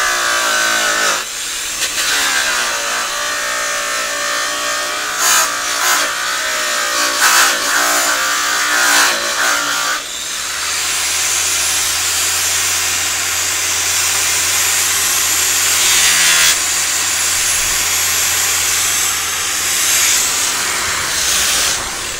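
Handheld electric polisher running against the bare metal panels of a trailer. Its motor pitch wavers under changing pressure for about the first ten seconds, then settles into a steadier, noisier whir.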